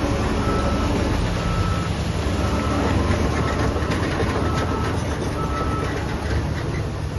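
Heavy construction machine's diesel engine running, with a reversing alarm beeping about once a second, six times.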